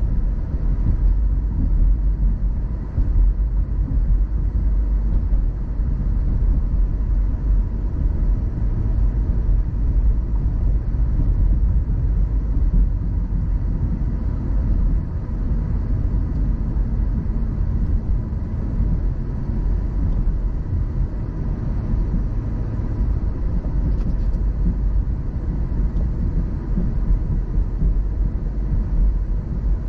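Car driving at steady speed: an even low rumble of tyre and engine noise.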